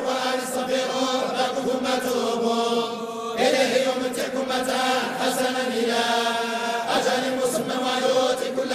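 A group of men chanting Quranic verses together in unison, in the slow Moroccan style of collective recitation, holding long drawn-out notes. A new phrase begins about a third of the way in and again about three-quarters of the way through.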